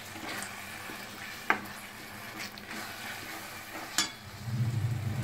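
Wooden spoon stirring a thick masala in a metal kadai, the paste sizzling gently, with a sharp knock of the spoon on the pan about a second and a half in and another near four seconds. A low hum comes in near the end.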